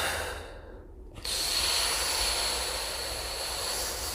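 A person's breath: a short breath at the start, then from about a second in a long, steady, hissing exhale lasting about three and a half seconds.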